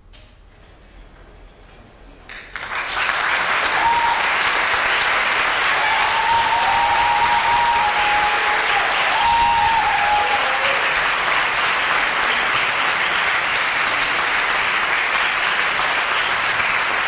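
Theatre audience applauding: after a brief hush the clapping breaks out suddenly and stays steady and loud, with a few long calls from the audience over it in the middle.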